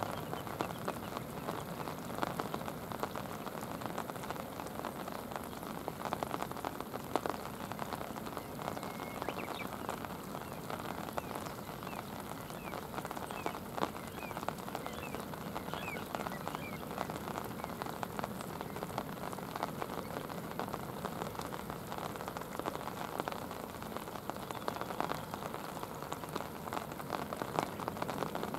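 Steady rain falling on a shallow river's surface, a dense even hiss of small drops.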